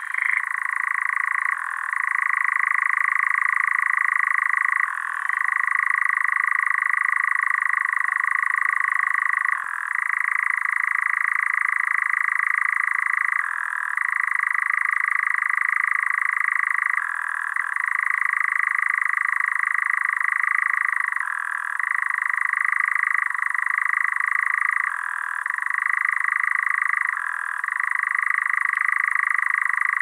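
European nightjar churring: a long, continuous trilling song with short breaks every few seconds.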